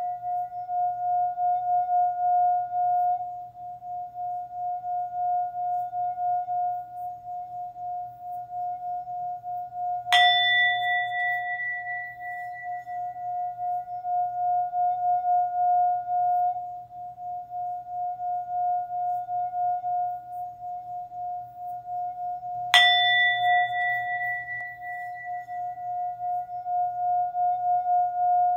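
Singing bowl holding a steady, gently wavering tone, struck twice about thirteen seconds apart, each strike adding bright higher ringing tones that fade over a few seconds.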